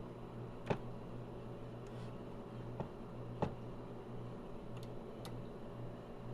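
Steady low hum of a running computer, broken by a few sharp clicks: one under a second in, a lighter one near three seconds, another about half a second later, and two faint ticks after that.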